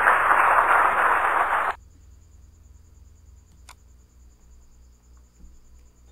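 A loud, even rushing noise from the interactive quiz's sound effect for a correct answer cuts off abruptly about two seconds in. After it there is only a faint steady hum and one faint click.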